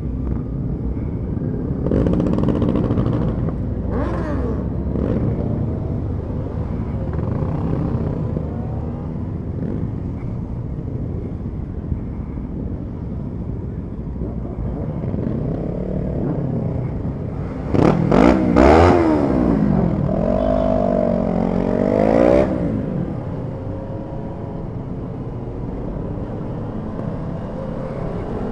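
A group of motorcycles riding together in city traffic, engines running steadily with road and wind noise. Bikes rev up now and then, loudest about two-thirds of the way through, where the engine pitch climbs and falls in a few quick throttle blips.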